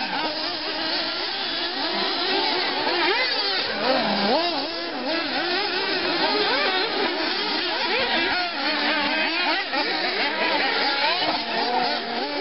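Several 1:8-scale nitro off-road RC buggies racing, their small two-stroke glow-fuel engines whining as they rev up and drop off, many pitches overlapping and rising and falling constantly.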